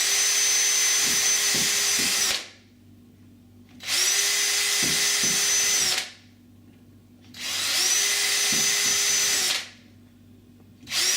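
Power drill boring screw pilot holes into a uPVC door, run in bursts of about two seconds: three full runs and the start of a fourth near the end, each with a steady whine that rises as the trigger is pulled and drops away as it is released. The bit passes through the plastic without meeting any steel reinforcement.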